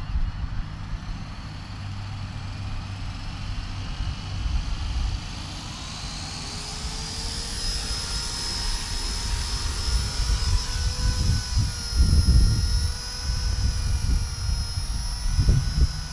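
Blade 200 SRX electric RC helicopter spooling up: the brushless motor and rotor whine rises in pitch over the first several seconds, then holds steady and high as it lifts off and hovers. Gusts of wind rumble on the microphone, loudest in the second half.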